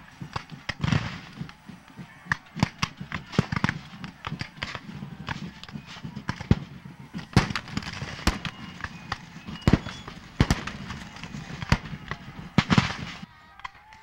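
Scattered black-powder musket fire: irregular sharp pops, several a second, some louder and nearer than others. The firing stops about a second before the end.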